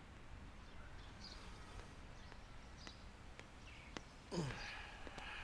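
Faint outdoor ambience with a few short, high bird chirps, and a brief falling vocal sound about four seconds in.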